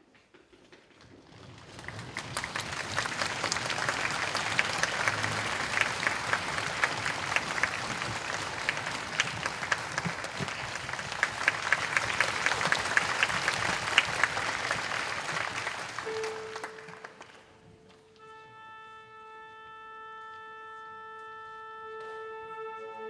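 Audience applauding, dying away near the end. As it fades, one instrument sounds a long steady tuning A, and the orchestra joins in on the same note to tune up.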